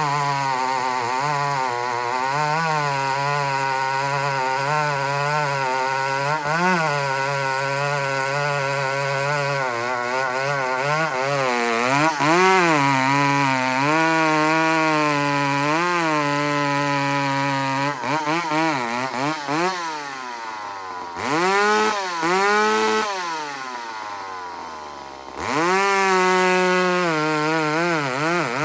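McCulloch SP81 two-stroke chainsaw at full throttle sawing through a big log, its engine note wavering under the load of the cut. About two-thirds of the way through the revs drop in a few dips and sink almost to idle, then near the end it revs back up to full speed. It runs strong on a fresh carburettor tuning, pulling hard without the sputter of a lean mixture.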